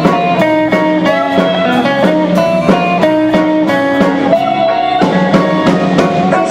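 Instrumental music with guitar and drum kit playing a steady beat, no singing.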